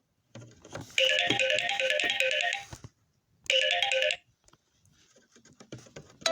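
A Samsung Galaxy S9 ringtone playing through a Lenovo A5 phone's speaker: a bright run of quick repeated electronic notes lasting about two seconds, then a shorter repeat after a brief pause.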